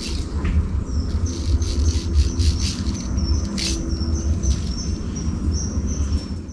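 A small bird singing a quick series of short, high chirps, over a steady low rumble.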